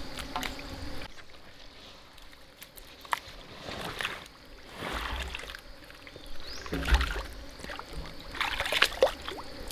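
Shallow muddy water sloshing and splashing in a few irregular surges, the loudest about seven seconds in, as the water of a drained pond is stirred while catching fish.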